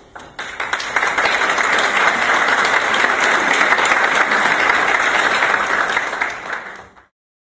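Audience applauding: dense, steady clapping from a large crowd that rises within the first second and fades out near the end.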